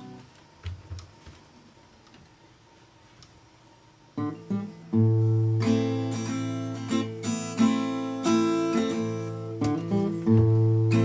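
Acoustic guitar: nearly quiet apart from a few faint taps, then strummed chords start about four seconds in and keep going, loud and ringing.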